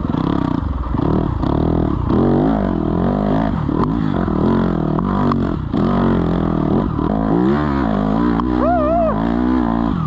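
Dirt bike engine revving up and dropping back again and again, its pitch rising and falling about once a second, as the rear tyre struggles for grip in deep snow. A brief high wavering tone sounds near the end.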